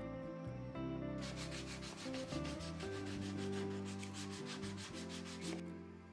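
Sanding block rubbed back and forth by hand along a plywood edge, in quick even strokes of about five or six a second. It starts about a second in and stops shortly before the end, with soft background music underneath.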